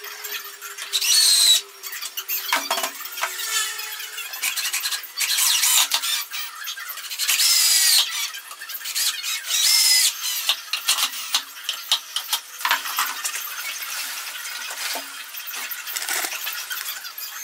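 Cordless drill driving screws into OSB board in short high-pitched bursts that squeal as the screws bite. There are about four main bursts in the first ten seconds, then smaller scattered noises.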